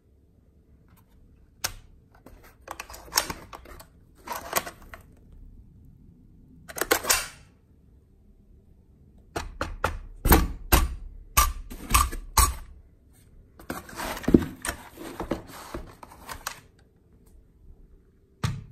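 Handling sounds of an AKM rifle being taken out of its foam-lined case: scattered clicks and knocks, a cluster of sharp knocks with thuds about ten seconds in, then a few seconds of rustling and scraping.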